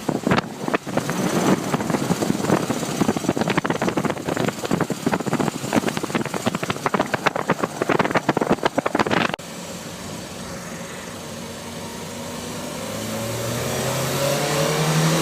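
Opel Kadett B's tuned 1.2 S OHV four-cylinder engine on the road, under a loud, irregular crackling rattle that cuts off suddenly about nine seconds in. The engine then runs steadily and rises in pitch as the car accelerates near the end. The owner suspects the odd noise comes from a bearing underneath the car.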